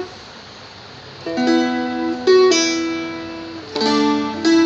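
Seagull Merlin, a small four-string fretted dulcimer, strummed: after about a second of quiet, about four chords are struck and left ringing.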